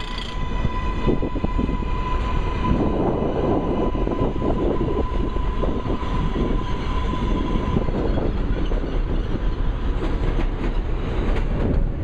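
New York subway R188 train cars pulling in alongside the platform: a steady rumble and clatter of steel wheels on the rails. A single steady high whine runs through the first half and fades out, and sharper clicks come near the end.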